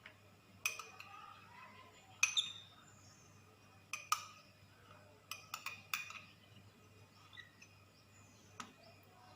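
A utensil clinking against a drinking glass as seeds are picked out of squeezed calamansi juice: about nine sharp, irregular clinks with a brief ring. Several come in a quick cluster around four to six seconds in.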